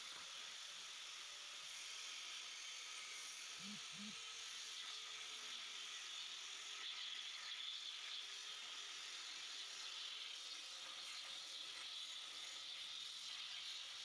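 CNC plasma cutting table at work on a steel plate: a steady hiss with a mechanical whir.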